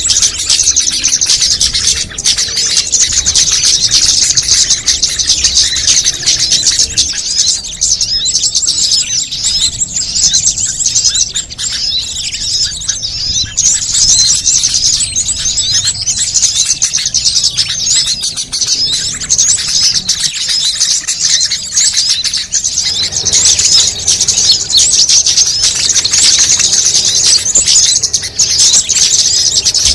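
Bird-lure recording of many small songbirds calling over one another: a dense, continuous stream of rapid high-pitched chirps and twitters.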